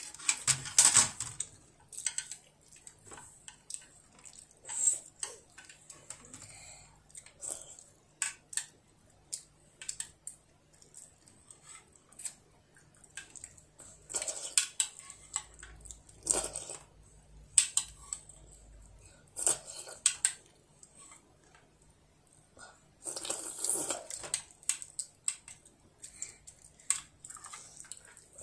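Metal spoon clicking and scraping against a plastic children's plate in irregular short taps, as a child scoops up the last of his food. There is a longer, louder stretch of scraping about three-quarters of the way through.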